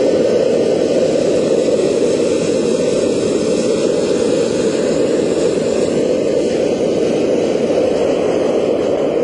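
Hot air balloon's propane burner firing in one long, loud, steady blast, shut off suddenly near the end.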